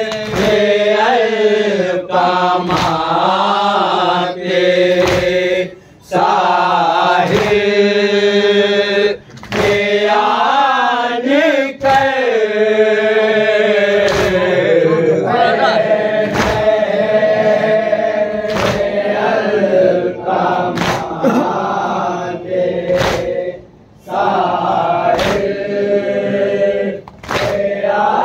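A group of men chanting a nauha, a Muharram lament, in unison behind a lead reciter, in phrases with short breaths between lines. Sharp chest-beating (matam) slaps keep time about once a second.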